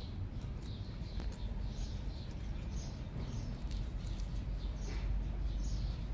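Repeated short, high-pitched chirps from a small animal, several a second, over a steady low rumble.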